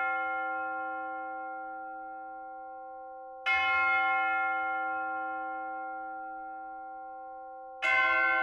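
A church bell tolling slowly: struck twice on the same note about four seconds apart, each stroke ringing on and fading slowly.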